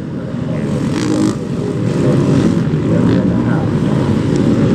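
Motor vehicle engines running steadily, their pitch wavering.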